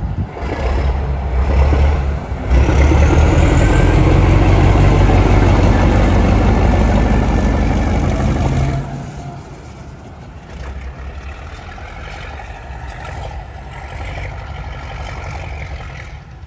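Diesel locomotive T23 119 passing at close range, its engine running loud under power, with a faint rising whine in the first few seconds. The sound drops sharply about nine seconds in, and the engine carries on quieter as the locomotive moves off along the tracks.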